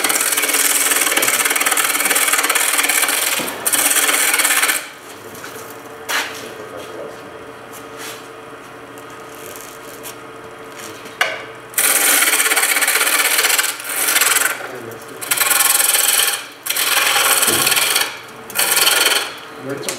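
Skew chisel roughing down a banksia pod spinning on a wood lathe: loud, rough, hissing cuts in repeated passes of a second or two each. There is a longer pause in the middle where only the lathe's steady hum is heard.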